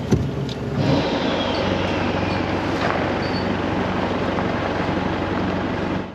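Isuzu D-Max 4x4's turbo-diesel engine running with a steady low hum, under a broad rushing noise.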